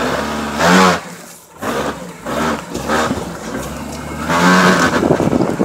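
A 1999 Jeep Cherokee's engine revving in repeated short surges that rise in pitch, the strongest about a second in and near the end, as it drives off road on a rough dirt trail. Tyre and road rumble runs underneath.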